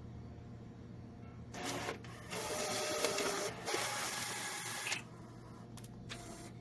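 HP PageWide inkjet printer running a print cycle: a short whir about a second and a half in, then about two and a half seconds of loud mechanical printing and paper-feed noise over a steady low hum.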